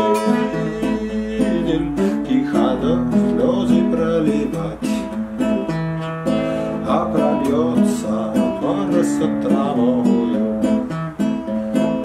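Nylon-string classical guitar strummed in a steady rhythm, playing chords as an instrumental passage.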